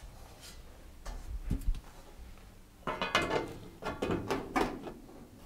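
Sheet-metal oven top panel knocked into place a couple of times, then a hand screwdriver driving a screw into the panel with short, irregular metallic scraping and rattling strokes for a couple of seconds.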